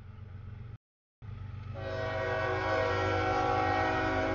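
CSX freight locomotive's multi-chime air horn sounding one long, steady blast as the train reaches the grade crossing, starting about two seconds in over the low rumble of the diesel engine. The sound cuts out briefly about a second in.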